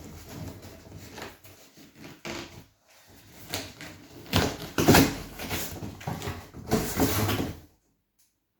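A large cardboard gift box being opened and handled: irregular rustling, scraping and knocking of cardboard, loudest in the middle and near the end.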